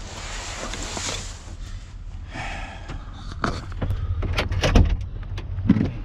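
Truck cab door being opened and someone moving through it: a rustling hiss at first, then several sharp knocks and thumps, the loudest near the end, over a steady low rumble.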